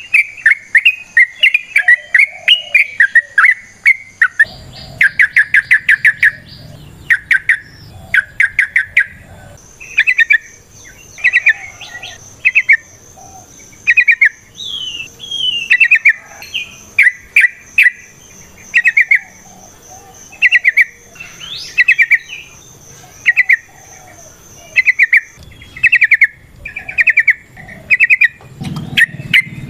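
Yellow-vented bulbul (trucukan) singing: short, loud, bubbly chattering phrases repeated about once a second. A thin steady high tone runs behind it from about ten seconds in.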